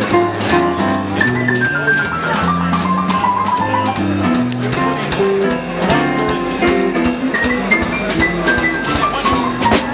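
A live band playing on a 3D-printed drum kit, electric guitar and keyboard: a steady beat on drums and cymbals under a moving low line and a higher melody.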